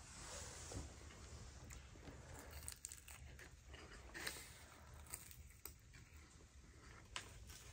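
Near silence: quiet room tone with a few faint clicks and rustles.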